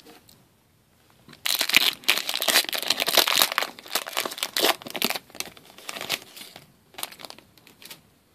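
Foil wrapper of a hockey trading-card pack crinkling as the pack is torn open and crumpled in the hands. The crinkling starts about a second and a half in, is densest for about four seconds, then thins to a few scattered crinkles.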